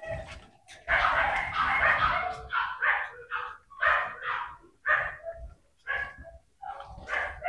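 Dogs barking over and over in short, sharp barks, about two a second, starting about a second in.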